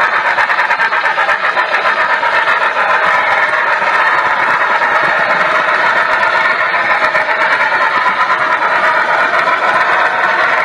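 HO-scale model train running along the track: a steady rolling rumble with fast clicking of the metal wheels on the rails, heard close from a camera riding in one of the cars.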